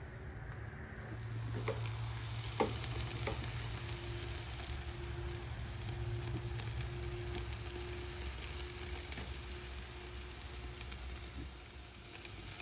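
Hamburger patties sizzling on a charcoal tabletop ceramic kamado grill. The steady sizzle sets in about a second in, with a few faint clicks over it.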